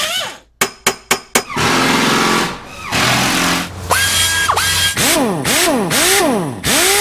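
Sound effects for a channel logo intro. A quick run of sharp taps is followed by a power-tool-like whir, then a steady tone and a series of tones that rise and fall.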